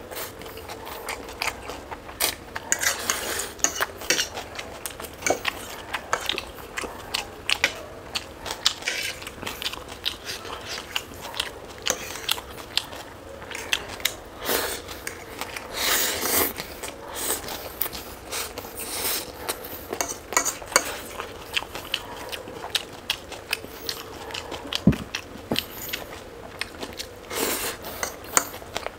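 A person eating close to the microphone, biting and chewing food, with many quick, irregular crunchy clicks and crackles.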